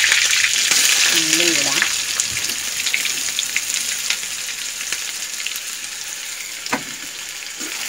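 Hot coconut oil in a steel kadai sizzling and crackling around popped mustard seeds and curry leaves, then with chopped onion tipped in. The sizzle slowly dies down, and there is one sharp knock about seven seconds in.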